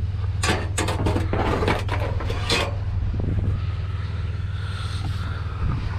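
Scrap metal pieces clanking and scraping as they are thrown in, several sharp clanks in the first two or three seconds, over a steady low hum of an idling vehicle engine.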